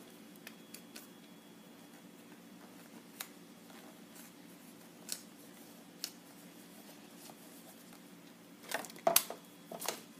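Handling noise from small objects: a few light, scattered clicks and taps, then a louder cluster of clicks and scraping about nine seconds in, over a faint steady hum.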